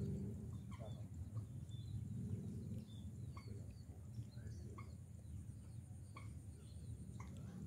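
Small birds giving short, scattered chirps over a faint, steady low rumble in the open air of a rice field.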